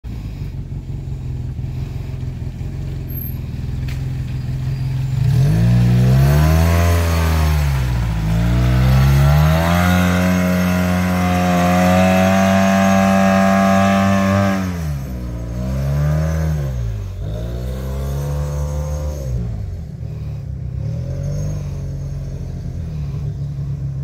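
Side-by-side UTV engine running steadily, then revved hard about five seconds in as it climbs a steep muddy creek bank. It holds high revs under load for several seconds, drops, swells twice more in short revs, and settles back to a lower steady run near the end.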